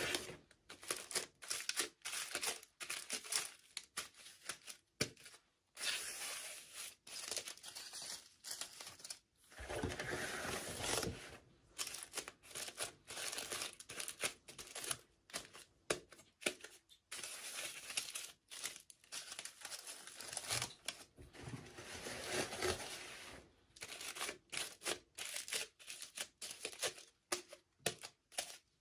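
Toy packaging being crinkled and torn open by hand, in short irregular bursts with brief pauses.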